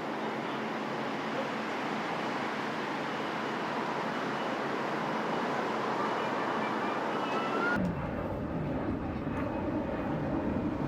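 Steady engine noise with a faint rising whine. About eight seconds in it changes abruptly to a lower engine rumble.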